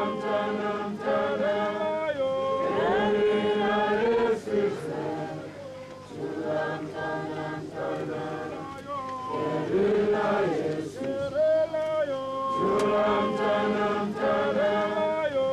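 A large crowd singing together in many voices, with long held notes in phrases and brief breaks between them.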